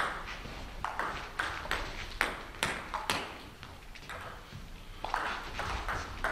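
Table tennis ball clicking sharply off bats and the table during play: a quick, irregular string of hard clicks.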